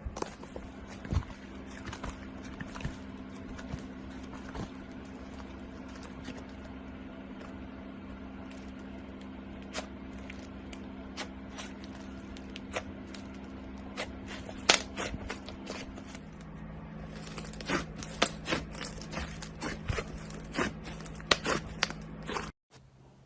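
Slime being handled for ASMR: scattered crackles, clicks and small pops as it is pressed and poked, over a steady low hum. The crackling grows denser later on, and cuts off briefly near the end.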